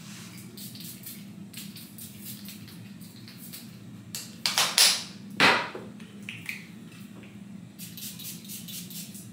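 Perfume atomizer spraying: a few quick hisses in a row about four and a half seconds in, then one louder spray about a second later.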